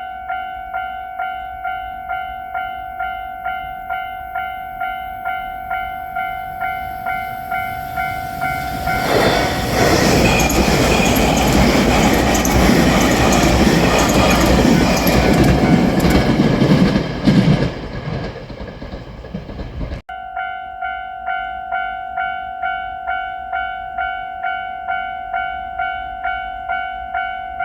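Japanese railroad crossing bell ringing steadily, about two strokes a second. About nine seconds in, a JR Shikoku 8000 series limited express electric train passes loudly for about eight seconds and drowns the bell. After a sudden break, the bell is heard ringing again.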